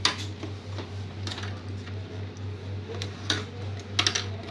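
Plastic clicks and knocks as a laser printer's scanner unit and its panels are lifted and handled by hand: a few separate clacks, with a small cluster near the end. Under them runs a steady low hum.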